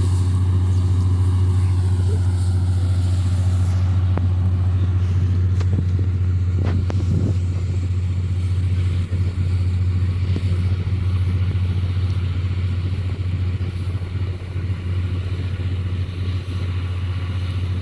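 Combine harvester's engine running steadily with a constant low drone.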